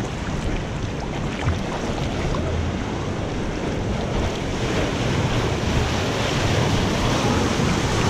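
Rushing, churning water of a water-park wild-river channel around a camera at the water's surface, a steady wash that grows louder over the second half as the current foams white.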